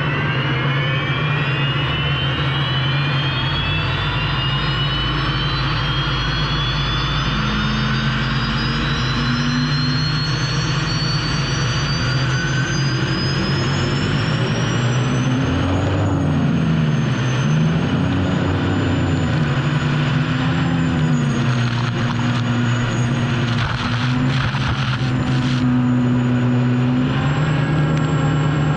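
Unlimited hydroplane's Lycoming T55 turbine engine heard from onboard at speed. Its high whine climbs steadily in pitch for about fifteen seconds as the turbine spools up, then holds steady over a constant rush of noise.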